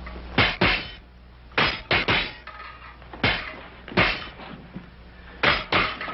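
Épée blades clashing in a fencing bout: about nine sharp metallic clashes, mostly in quick pairs, some with a short ring.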